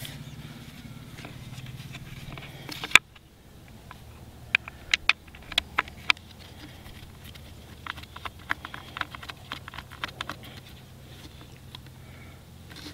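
Scattered light clicks and taps as metal dibble spikes and their screw fittings are handled and fitted on a wooden dibble wheel. A low steady hum runs under the first three seconds and ends at a sharp click.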